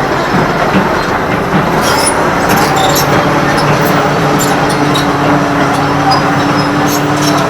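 Hydraulic excavator working, its diesel engine running steadily under load with scattered metallic clanks and squeaks from the tracks and linkage. A steady drone comes in about five seconds in.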